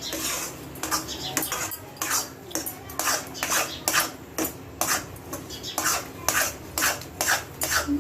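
Metal spoon or spatula scraping round a kadhai, about two to three strokes a second, as a thick turmeric and ghee paste is stirred continuously so it doesn't stick and burn on the bottom.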